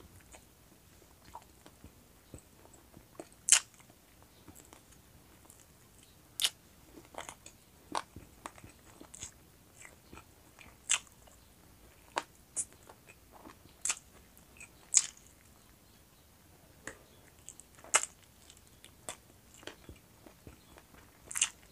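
Close-miked chewing and biting of roast chicken wings, with irregular sharp mouth clicks scattered throughout; the loudest come about three and a half seconds in, twice near fifteen and eighteen seconds, and just before the end.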